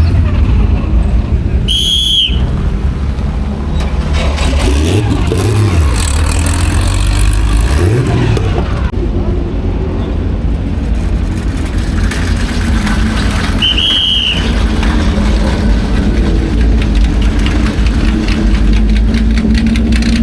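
Historic racing car engines on the circuit over a loud, steady low rumble, with engine pitch rising and falling as cars rev and pass. Two brief high-pitched squeaks come about two seconds in and again near fourteen seconds.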